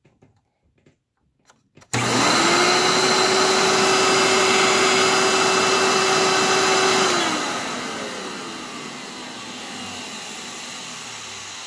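Hoover Elite vacuum cleaner motor switched on about two seconds in, running with a steady high whine for about five seconds, then switched off and spinning down with falling pitch. The motor bearings are dry and in need of servicing, as the owner puts it.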